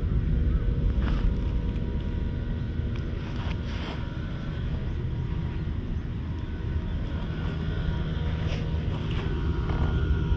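Steady low outdoor rumble, with a few faint brief rustles.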